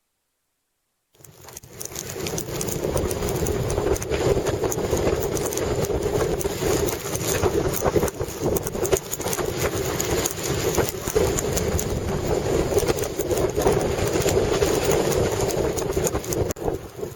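Strong blizzard wind buffeting the microphone: a loud, steady rumble with crackling gusts, starting about a second in.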